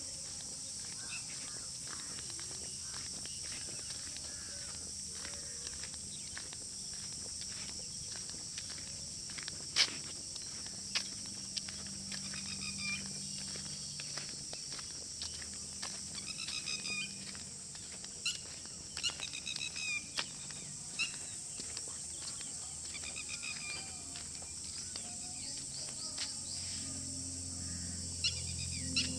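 Outdoor field ambience: a steady high-pitched insect drone throughout, with repeated short bird chirps from about halfway in and a few scattered clicks; a low hum comes in near the end.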